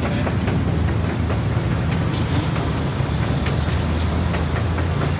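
Deep-frying stall: a steady hiss of dough sticks frying in large woks of oil over a continuous low rumble, with scattered light clicks of metal strainers and chopsticks.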